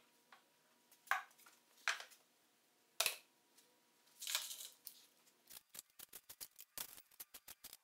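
Quiet handling sounds as plywood parts and a glue bottle are fitted and set down: a few scattered taps and a brief rustle. From about five and a half seconds comes a run of quick, irregular light clicks as small screws are handled in the palm.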